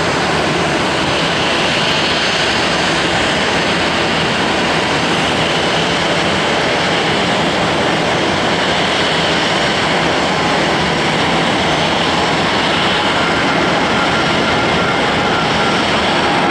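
Airbus A320's jet engines running at taxi thrust, a loud, steady rushing noise.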